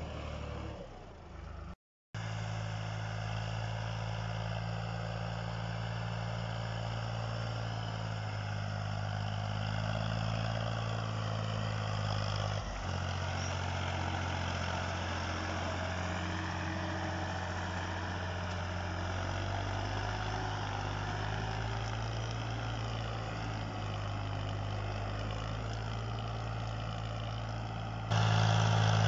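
Powertrac tractor's diesel engine running steadily under load, pulling a disc harrow through wet soil. The sound drops out briefly about two seconds in and gets louder near the end.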